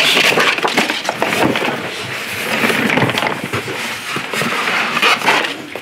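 Packaging being handled: nylon straps undone and a foam case scraped and shifted inside a cardboard box, a steady rustling scrape with many small knocks and clicks.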